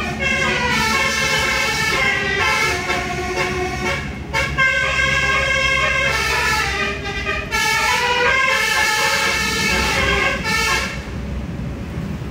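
Basuri musical car horn on the car ahead playing a melody, several tones sounding together and stepping from note to note, until it stops about eleven seconds in. Heard from inside the following car.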